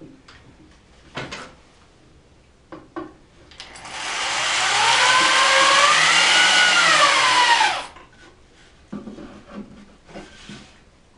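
A handheld electric drill runs for about four seconds, its motor pitch rising and then falling as the trigger is squeezed and eased. Short knocks and handling clatter from wood and tools come before and after it.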